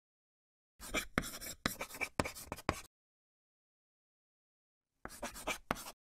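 Pen-scribbling sound effect, quick scratchy strokes like writing on paper, in two bursts: about two seconds of strokes starting just under a second in, then a shorter burst near the end.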